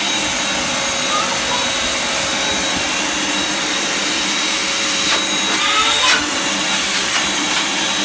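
Vacuum cleaner running steadily, its hose nozzle sucking sawdust off a tile floor: a loud rush of air with a steady high whine. A couple of faint clicks come a little past halfway.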